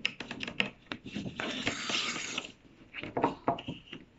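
A picture card being slid out of a wooden kamishibai stage to change the scene. There is a run of small clicks, then about a second of sliding rustle near the middle, then a few more clicks.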